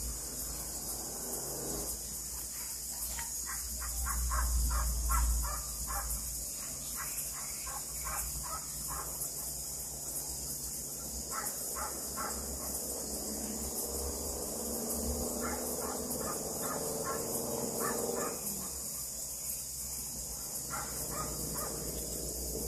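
Frogs calling in repeated runs of short, evenly spaced notes, a few per second, over a steady high-pitched insect chorus. A brief low rumble comes about four seconds in.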